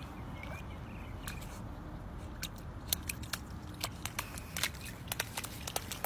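Golden retriever puppy pawing and biting at a shallow puddle in a wet concrete gutter: irregular sharp little splashes, snaps and taps over a low steady background rumble.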